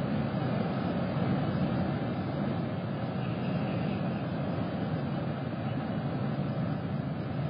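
A steady low rumble of background noise, with nothing standing out from it.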